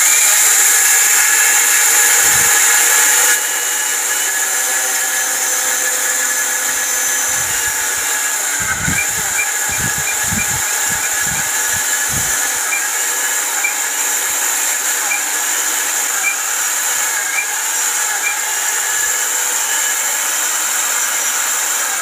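Jaipan Fruitica mixer grinder's motor running at high speed with a steady high whine, grinding whole raw cumin seeds in the small stainless steel dry-grinding jar. This is the first coarse breaking stage of the seeds. The sound drops slightly in level about three seconds in, with faint regular ticking in the middle part.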